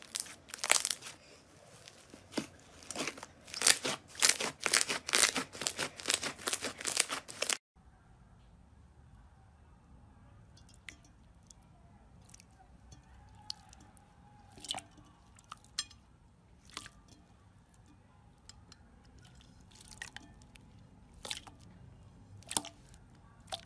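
Hands pressing and kneading a thick white slime, with dense, rapid crackling clicks and pops. About eight seconds in it cuts to a clear purple slime being pressed and squeezed by hand, much quieter, with only occasional sharp clicks.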